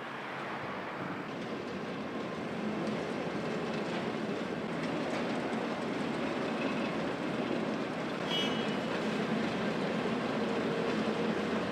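Asphalt milling machine at work, a steady grinding mechanical noise of the machine and its conveyor dropping milled asphalt into a dump truck, growing gradually louder. A brief high tone sounds about eight seconds in.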